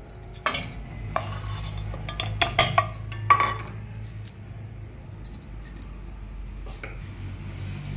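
Stainless-steel bowl and mixer-grinder jar clinking and knocking as sesame seeds are tipped from the bowl into the jar. A cluster of sharp clinks comes in the first three and a half seconds, then it goes quieter.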